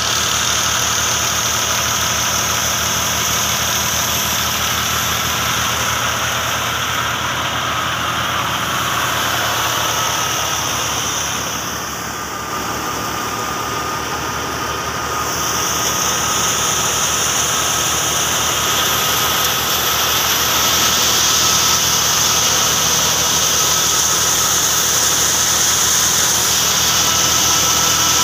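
Tractor-driven wheat thresher running steadily under the tractor's engine, its drum and fan turning with a constant high whine over the engine's drone.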